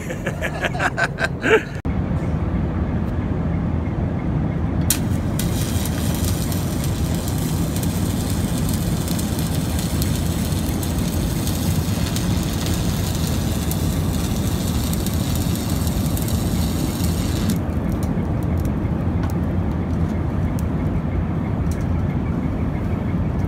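Stick arc welding on steel: the arc strikes about five seconds in, crackles and hisses steadily for about twelve seconds, then cuts off. A steady low hum sits underneath, and a quick run of clicks comes in the first two seconds.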